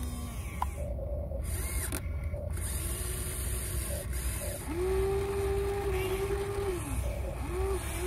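Electric motors of a Huina radio-controlled excavator whining as the boom and arm move: short whines that rise and fall, then a longer steady whine from about five to seven seconds in as the arm lowers to dig. A low steady rumble runs underneath.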